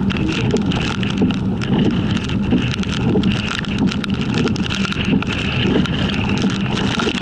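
Steady engine and road noise of a vehicle driving on a wet road, heard from inside, with wind noise on the microphone and scattered small clicks.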